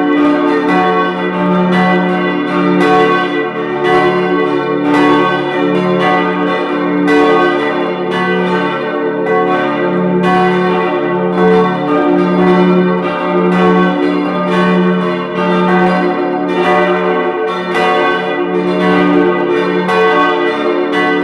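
Full peal of four church bells tuned d′, f♯′, a′ and b′ (German h′), all ringing together. Their strokes come about every half second to second in an uneven, overlapping stream, each stroke ringing on into the next.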